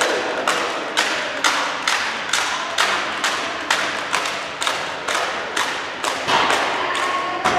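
Regular sharp knocks, about two a second, each echoing in a large sports hall.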